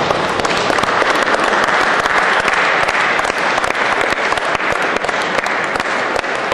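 Audience applauding loudly and steadily, cheering a kettlebell lifter on through the last minute of her set.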